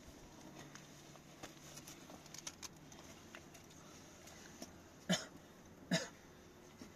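Rope and cloth being handled and pulled tight while a wooden splint is tied onto an injured leg, with faint scattered clicks and rustles. Two short, louder sounds come about five and six seconds in.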